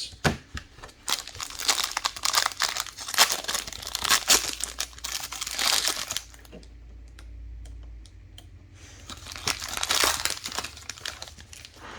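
Plastic wrapping on trading card packs crinkling and tearing as it is handled and ripped open, in two spells with a short pause between them.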